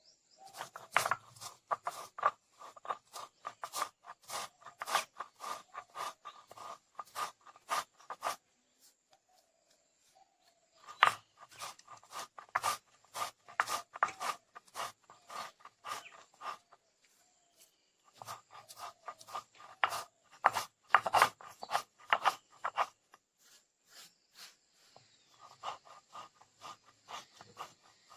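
Rapid, regular strokes of food being prepared by hand, knocking and scraping in runs of several seconds with short pauses between them.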